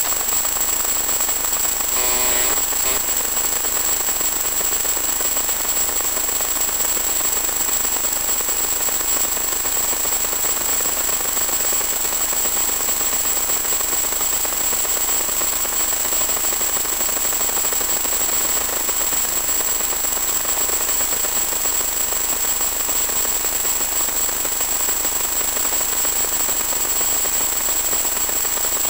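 Steady crackling static hiss with a thin high-pitched whine, from the audio channel of an analog 1.2 GHz FPV video link. A brief pitched sound rises out of it about two seconds in.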